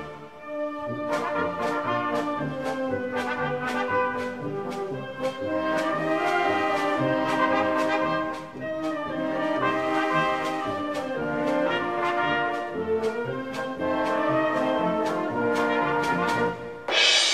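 Brass band playing a procession march, with trumpets and trombones over a steady drum beat. The music dips briefly at the start and turns suddenly louder near the end.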